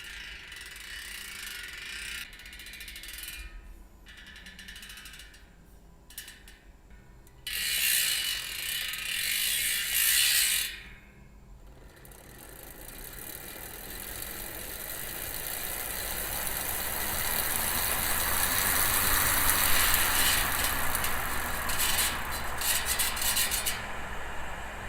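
Bicycle rear hub freewheeling: the freehub pawls click so fast that they run together into a buzz. It goes in several spins, with a loud one in the middle, a short break, then a long spin that builds up steadily and eases off near the end.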